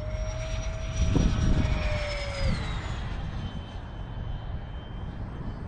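Whine of an RC jet's 80 mm nine-blade electric ducted fan during a fly-by. A steady high tone and a lower tone both drop in pitch about two and a half seconds in as it passes, then a fainter whine carries on. A steady low rumble runs underneath.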